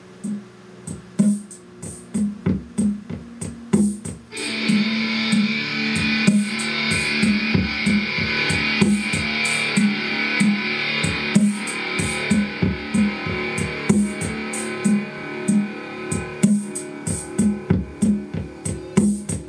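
Music with a steady beat and plucked guitar played through restored Altec Valencia 846B horn loudspeakers, with fuller instrumentation coming in about four seconds in.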